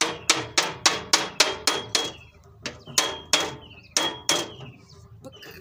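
Hammer blows on a cut-open iron oil tin being fastened to a tree trunk, about three to four a second, each leaving a short metallic ring. The blows pause briefly a little past two seconds and thin out near the end.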